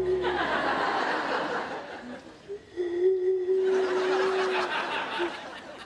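Studio audience laughing, easing off about two seconds in and swelling again, while a man blows across the mouth of a beer bottle. The bottle gives one steady hoot of about two seconds near the middle.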